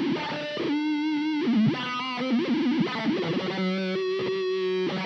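Electric guitar (Rivolta Mondata VIII) played through the RPS Effects Arcade Machine harmonizer/octaver pedal. Short notes swoop up and down in pitch between held notes, and several notes cut off abruptly under the pedal's strong gate.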